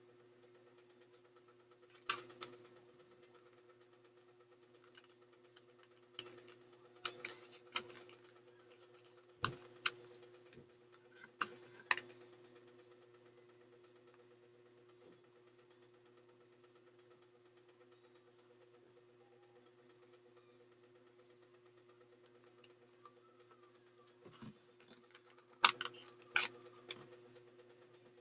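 Scattered sharp clicks and taps, in clusters, from small items being handled, over a steady low hum.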